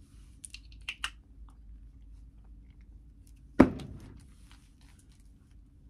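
Perfume atomizer spraying: a short faint hiss with a few small clicks in the first second. About three and a half seconds in, a single loud thump, the loudest sound here.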